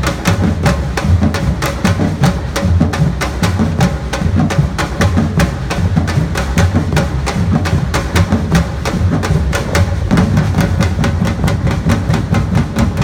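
Samba-reggae drum band playing: deep bass drums under a fast, even stream of sharp snare and hand-drum strokes.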